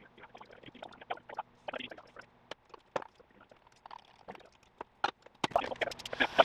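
Stirrer lightly clinking and scraping in glass measuring cups of hot liquid soft-plastic plastisol, scattered small taps over a faint low hum. Near the end a louder steady hiss with more clinks sets in.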